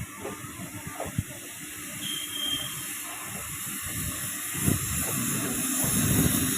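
Railway platform noise: a steady hiss over a low rumble that grows louder toward the end, as a train moves along the platform, with a brief faint high squeal about two seconds in.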